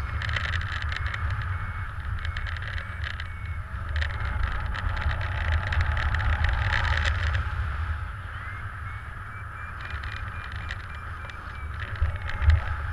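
Wind rushing over the camera microphone in paraglider flight, with a low steady rumble that gets busier and louder through the first half. A faint, fast-pulsing electronic beep from the pilot's flight variometer comes back in the second half, and a single sharp knock sounds near the end.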